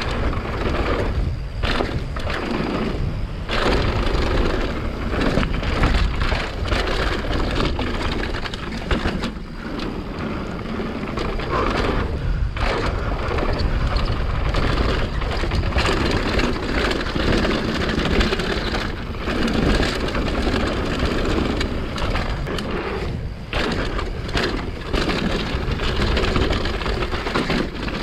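Mountain bike ridden fast down a dirt trail: knobby tyres crunching and rumbling over the ground, with the bike's chain and frame clattering over bumps. The noise dips briefly several times.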